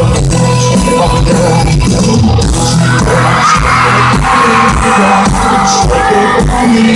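Live country band playing loudly through a concert sound system, with a steady drum beat and bass. About three seconds in, the crowd starts cheering and yelling, with a few high-pitched screams.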